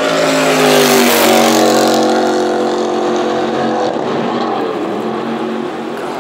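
Racing jet boat speeding past, its engine note dropping slightly in pitch as it goes by and slowly fading, with a hiss of water spray loudest about a second in.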